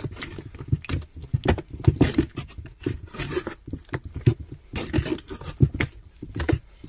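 A stick stirring thick, custard-like cement paste in a tub, mixing in black dye: irregular wet squelches and slaps, several a second.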